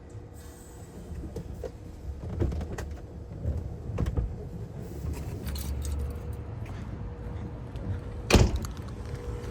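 Outdoor unit of a 1989 Carrier TECH 2000 heat pump running with a steady low hum and a faint steady tone. Scattered clicks and knocks sound over it, with one sharp bang near the end.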